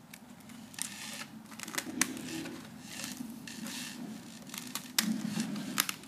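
Abrasive paper being pushed and wedged by hand into the clamping slot of a drum sander's drum: scattered clicks with paper rustling between them.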